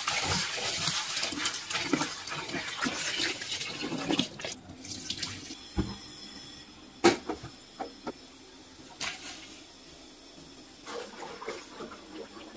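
Tap water running into a steel bowl of chopped vegetables while hands rinse and turn them, for about the first four and a half seconds. Then it goes much quieter, with a few sharp knocks and clicks, the loudest about seven seconds in.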